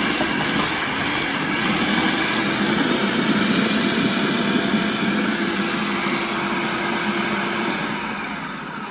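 Electric food processor motor running steadily, its blade churning tomatoes, onion, jalapeño and cilantro into salsa in the final blend. It gets a little quieter near the end.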